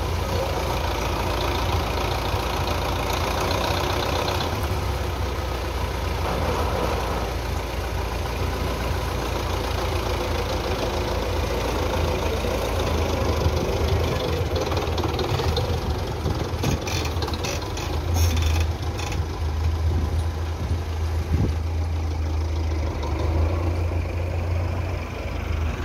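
Belarus 510 tractor's four-cylinder diesel engine running steadily as it gets under way with a mounted potato planter. A few short clicks come about two-thirds of the way through.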